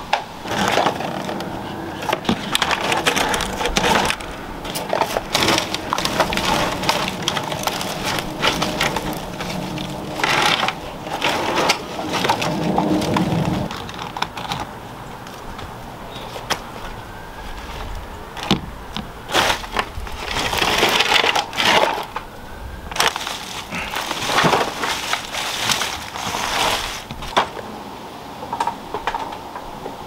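Ivy being ripped off by hand: leaves rustling and woody stems snapping and cracking in irregular bursts.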